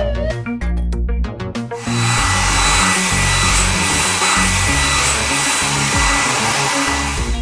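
A loud, steady hiss like rushing air or gas comes in about two seconds in over background music, then cuts off suddenly near the end.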